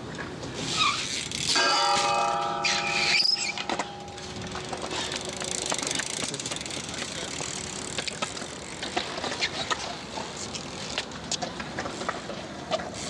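BMX bike on a concrete skatepark: a high squeal and a couple of seconds of ringing metallic tones early on, then the hiss of tyres on concrete with scattered clicks and rattles from the bike.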